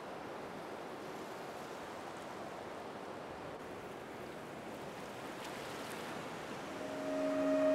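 Ocean surf washing as a steady, even hiss of moving water. Near the end, sustained synth chords fade in and grow louder.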